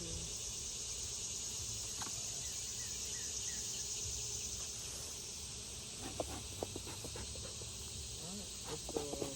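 A steady, high-pitched chorus of insects over a low rumble, with a few light clicks and knocks in the last few seconds.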